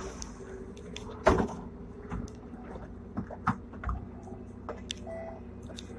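Hong Kong tram No. 120 running, heard on board: a steady rumble with irregular clicks and knocks from the wheels on the track and the car body, one sharp knock about a second in.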